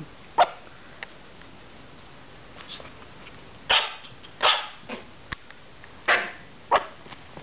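Five-week-old Maltese puppies yapping in play: one short yip about half a second in, then four more yips and barks about a second apart in the second half.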